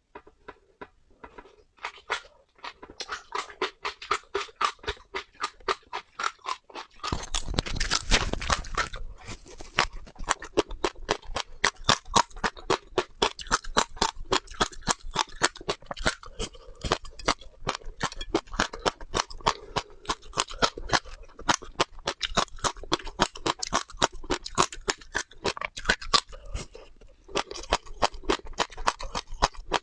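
Seeds being chewed close to the microphone: rapid crisp crunches, several a second. A louder rustling noise comes in about seven seconds in and lasts about two seconds.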